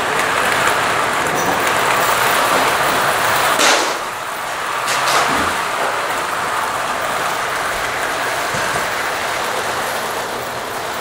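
Lionel Corporation Tinplate toy steam train running past on three-rail O gauge track: a steady whirring rumble of its motor and metal wheels on the rails, with two sharp clicks about four and five seconds in.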